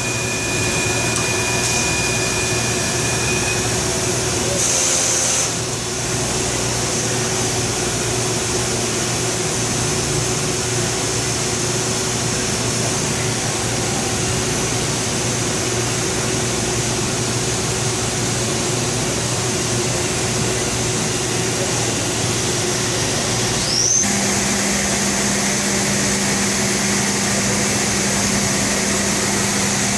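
Robotic CNC machining cell running: a steady mechanical hum and hiss of machinery. About three-quarters of the way through, a brief rising whine is followed by a new steady low hum.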